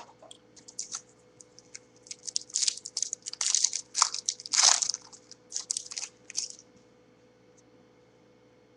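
Crinkling and tearing of a trading-card pack wrapper as it is ripped open, a run of crackly rustles that builds to its loudest in the middle and stops a couple of seconds before the end.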